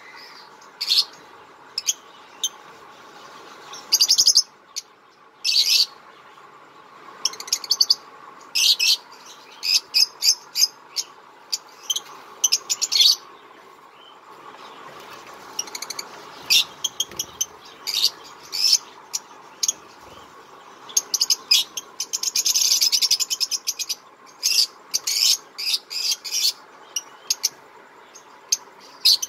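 Cage birds in an aviary chirping in many short, scattered high calls, with a longer run of busy chattering about 22 seconds in.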